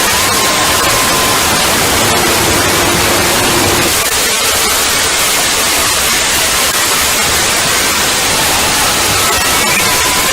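Loud, harsh static like white noise from an edited sound effect, steady throughout, with faint tones buried in it, one high tone slowly sliding lower in pitch.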